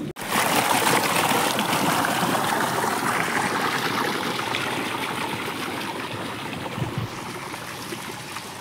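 Tubewell irrigation water rushing and churning along an earthen field channel: a steady rush of running water that slowly grows quieter.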